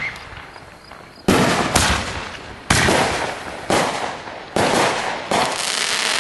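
Aerial fireworks bursting overhead: about half a dozen loud bangs roughly a second apart, each trailing off into a rolling echo before the next.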